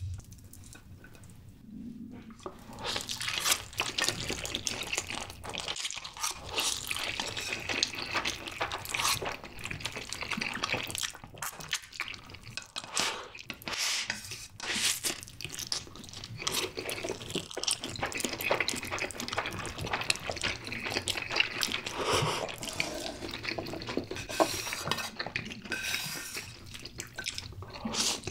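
Close-miked slurping and chewing of saucy instant noodles, Jjapaghetti black bean noodles and Buldak spicy stir-fried noodles, by two eaters: wet, irregular slurps and mouth smacks. The eating starts about two seconds in.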